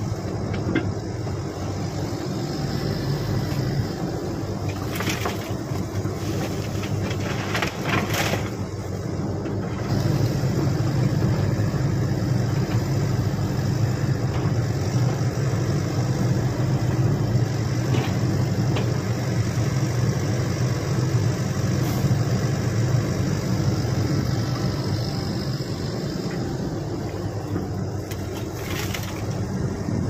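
Shantui SE135 hydraulic excavator's diesel engine running steadily under load as it swings and loads earth into a dump truck. The engine note gets louder about a third of the way in and eases off near the end, with a few short clunks along the way.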